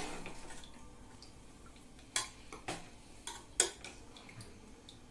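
Spoon stirring fried rice in a stainless-steel kadhai: soft scraping with several sharp metal clinks against the pan in the second half, the loudest about three and a half seconds in.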